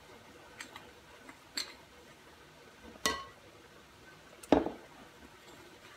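Metal fork clinking and scraping against a mixing bowl while stirring whole wheat flour and water into dough: four separate clinks, the loudest about four and a half seconds in.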